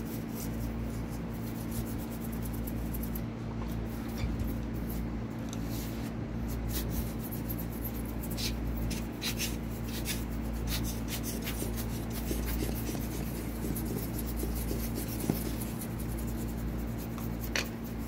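Light scratching, rubbing and small clicks of hands and tools working on an open laptop, over a steady low hum.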